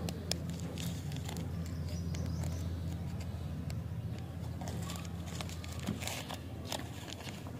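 Lollipop wrapper crinkling and tearing as fingers peel it open: a scatter of sharp crackles, over a steady low hum.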